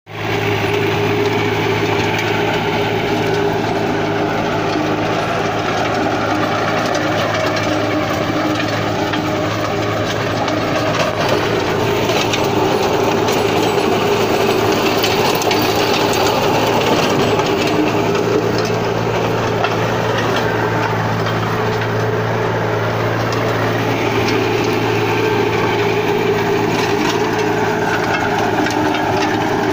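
Captain 283 4WD 28 HP compact tractor engine running steadily under load while it drives a rotavator through the soil, with the tiller churning soil underneath.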